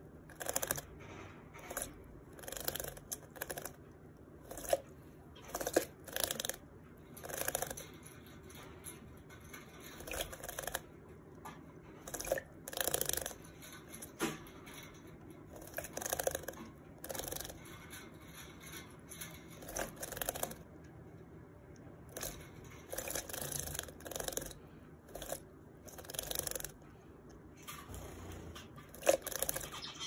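White Java sparrow bathing in a small plastic bird bath, splashing water and flicking its wings. The splashes come in short irregular bursts, roughly one every second.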